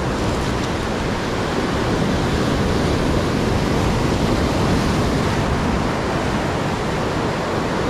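Sea surf breaking and washing over shoreline rocks, a loud, steady rush of water.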